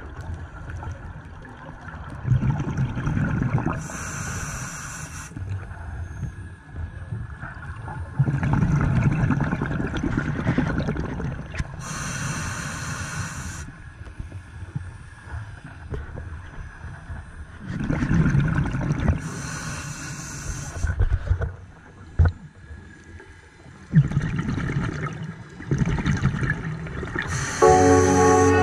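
Scuba diver breathing underwater through a regulator: a short hiss and a gurgling rumble of exhaled bubbles, repeating in a slow cycle about every eight seconds.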